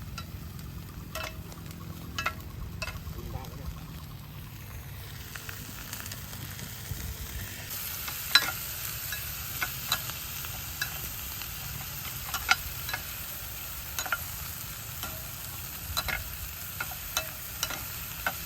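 Food stir-frying in a pan with a steady sizzle that grows louder partway through. A metal spatula clinks and scrapes against the pan at irregular intervals.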